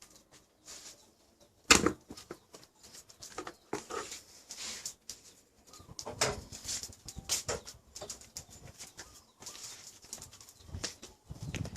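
Dog scratching and scuffling to bury a bone: irregular scratchy, rustling scrapes with clicks, the loudest just under two seconds in.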